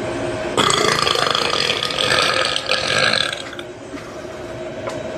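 A long, loud human burp that starts suddenly about half a second in, lasts about three seconds and fades out.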